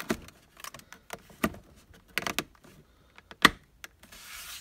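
A hand handling a plastic Godzilla toy figure in its window box: a string of plastic clicks and knocks, with one sharp click about three and a half seconds in and a short rustle of plastic near the end.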